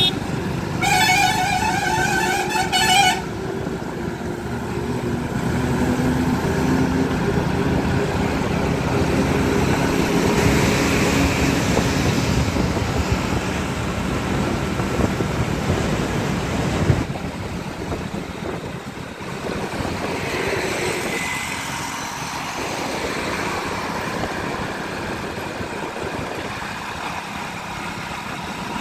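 Steady engine and wind noise of a two-wheeler cruising along an open road. A vehicle horn sounds once for about two seconds near the start, with a pulsing, warbling tone.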